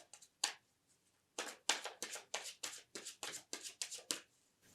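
Tarot cards shuffled by hand: a single short snap, then after about a second a steady run of about ten quick card snaps, roughly three a second.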